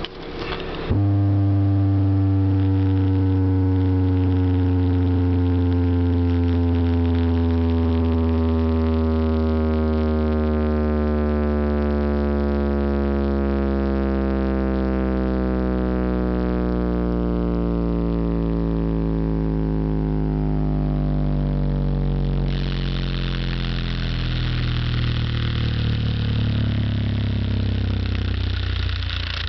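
A loud electronic bass drone played through a loudspeaker system, with a stack of tones gliding slowly downward in pitch over the steady deep bass. About 22 seconds in, a higher hiss joins it.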